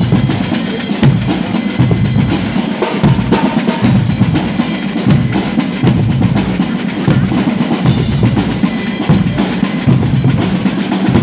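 Guggenmusik drum section playing a loud, driving groove on bass drum and snare drums, with steady, evenly spaced strokes throughout.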